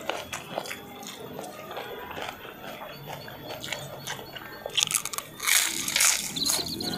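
Close-up eating sounds: biting and chewing food with wet, crunchy mouth noises and small clicks, with a louder crunchy stretch about five to six seconds in.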